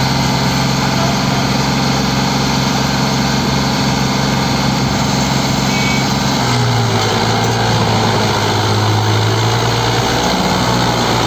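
Tractor diesel engines running steadily under load, with a low hum whose pitch drops slightly about halfway through.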